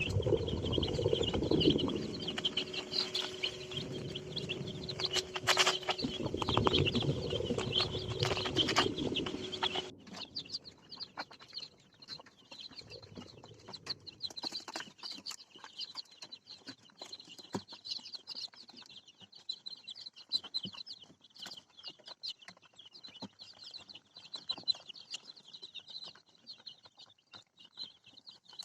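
A brood of young ayam kampung super chicks peeping constantly, many high chirps overlapping. For the first ten seconds a louder low rumbling and knocking with a steady hum runs underneath, then stops abruptly, leaving the chicks' peeping alone.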